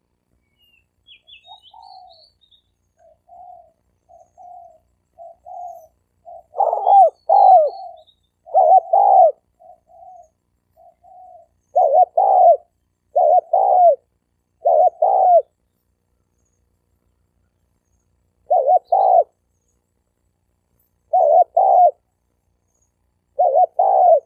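Spotted dove cooing. A run of soft, short coos is followed by louder coos in close pairs, repeated every second or two with longer pauses between groups. A few faint high chirps come early on.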